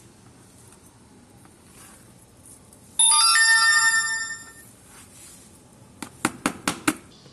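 A sudden bell-like ringing of several steady pitches at once, loud for about a second and then fading away, followed near the end by a quick run of five sharp clicks or knocks.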